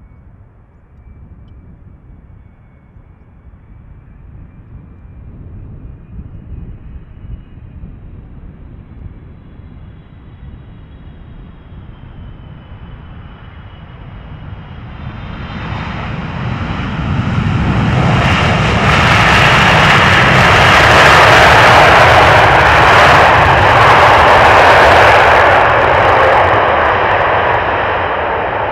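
Boeing 777F freighter's GE90 jet engines on landing. A low rumble with a faint high fan whine that slowly rises in pitch comes first. About fifteen seconds in, a loud roar builds as the engines go into reverse thrust after touchdown, then eases off near the end.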